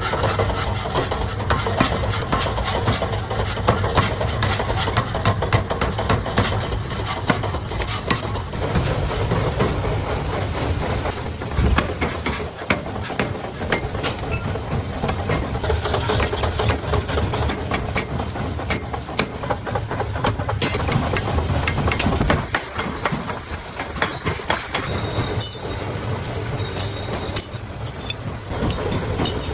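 Forge-shop machinery running, with a dense, continuous clatter of metal knocks over a steady low hum.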